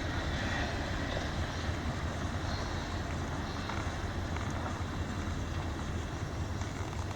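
Intermodal freight train rolling past, a steady rumble and rail noise with a constant low hum.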